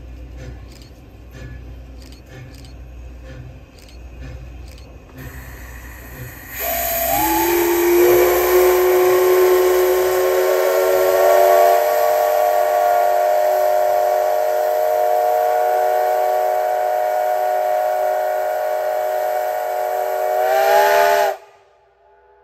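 Steam locomotive whistle (the SL Ginga's JNR Class C58 239) sounding one long blast of several tones at once. It is preceded by a rush of steam hiss, slides up to pitch, holds steady for about fifteen seconds and cuts off abruptly.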